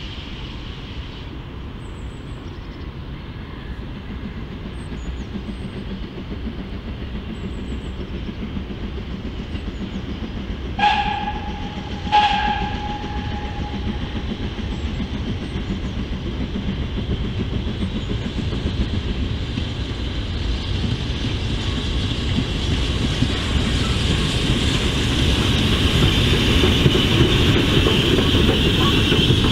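Steam train approaching, its running rumble growing steadily louder. Midway through, the steam whistle gives two short toots about a second and a half apart.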